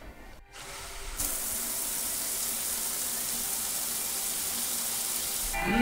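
Shower running: a steady spray of water hissing onto the tiled floor. It starts about a second in and cuts off sharply near the end.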